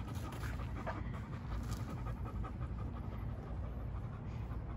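Chow chow panting steadily.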